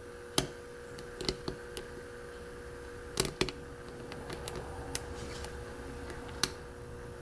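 Lock picking: a steel hook pick working the pins of a FarmerFreak six-pin mortise cylinder under a tension wrench, giving scattered small metallic clicks, the loudest pair about three seconds in. A faint steady hum lies underneath.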